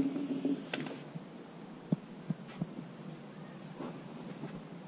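Insects trilling steadily in a high, even tone. Over it come rustling and a few light knocks from handling the PVC pipe, the sharpest about two seconds in.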